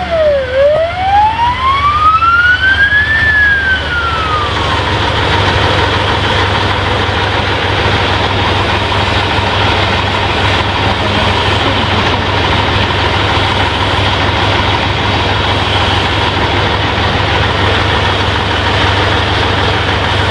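An emergency-vehicle siren sweeps down, up and down again in the first few seconds, then fades. Under it and afterwards is a steady rumble of running vehicle engines.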